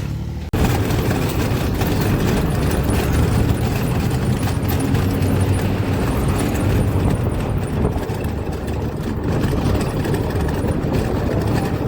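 A vehicle engine running with a steady, dense rush of noise that starts suddenly about half a second in.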